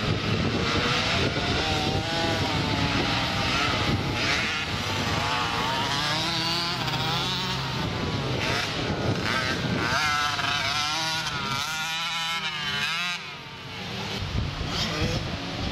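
Several motocross bikes racing past, engines revving up and down through the gears with overlapping pitches. The sound drops away briefly near the end, then builds again as bikes come close.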